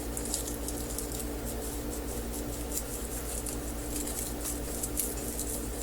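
Decorative transfer foil being rubbed down onto adhesive: many soft, irregular scratching and crinkling strokes over a steady low hum.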